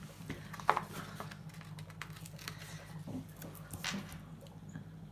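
Faint rustling and light taps of paper stickers being handled, peeled and pressed onto a planner page by hand, over a steady low hum.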